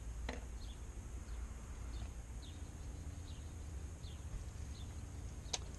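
Quiet outdoor background: a steady low rumble with several short, faint bird chirps scattered through it, and a single click about a third of a second in and another near the end.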